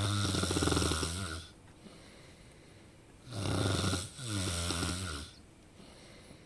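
A person snoring. One snore fades out about a second in, and another starts about three seconds in and lasts about two seconds, with a brief break in the middle.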